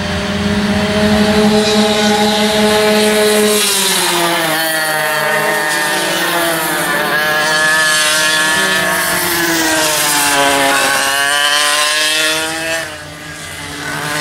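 Vintage racing go-karts' two-stroke engines running at high revs, several at once. The pitch drops about four seconds in and again after about ten seconds as the karts pass and slow for corners, then climbs as they accelerate.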